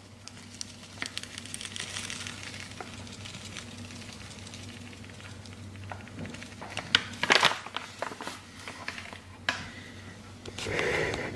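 Bag of fish fry coating mix crinkling and rustling as it is handled and shaken out, with a few sharp crinkles partway through and a short louder rustle near the end.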